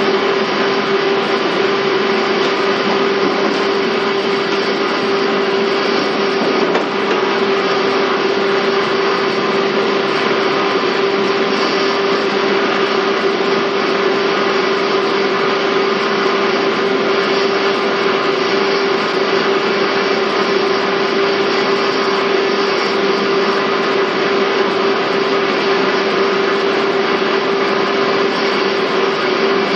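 Steady mechanical noise with a constant whine inside a 485-series EMU motor car, Moha 484-206. Level and pitch hold unchanged, with no rail-joint clicks.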